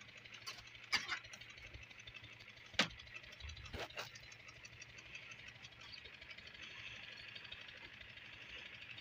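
Shovel and steel mortar pan knocking and scraping as the pan is loaded with mortar and hoisted onto a shoulder: a few sharp knocks in the first four seconds, the loudest near three seconds in. A steady low hum and hiss runs underneath.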